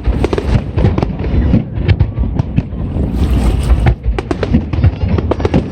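Aerial fireworks going off in quick succession: many sharp bangs and crackles, irregularly spaced, over a constant low rumble.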